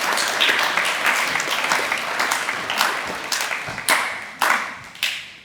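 Audience applauding an award recipient, many hands clapping at once; it dies away near the end to a few last claps.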